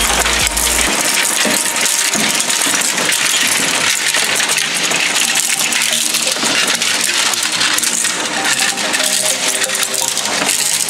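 Twin-shaft shredder's steel cutters crushing a plastic portable boombox. It makes a dense, continuous crackle and clatter of breaking plastic casing and circuit board.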